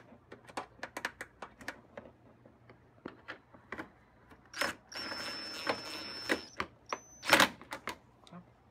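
Irregular light clicks, then a power drill runs for about a second and a half, driving a fender screw home with a steady whine. A brief second spin follows, then a sharp knock.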